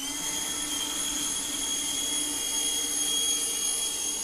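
A machine's steady high-pitched whine over a faint low hum.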